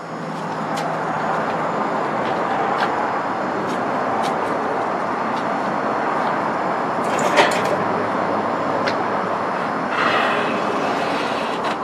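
Steady rushing of an electric heat gun's fan and hot air, softening vinyl lettering so it can be pressed into the tailgate's recessed letters, with a few light clicks and taps and a brief scratchy rustle about seven seconds in.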